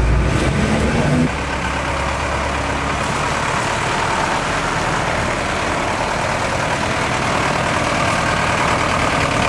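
Mercedes-Benz fire engine's diesel engine running as the truck drives. It is heard from inside the cab at first; about a second in the sound drops to a quieter steady engine and road noise as the truck is heard from outside, driving across the lot.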